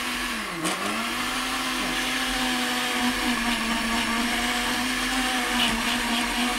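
Countertop blender running at speed 3, mixing thick chocolate cake batter, very close to the microphone. Its motor hum sags in pitch briefly about half a second in, then holds steady.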